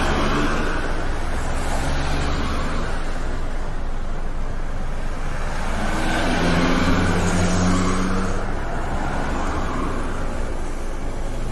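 Street traffic: a steady hum of passing vehicle engines and road noise, with a deeper engine drone swelling about six seconds in.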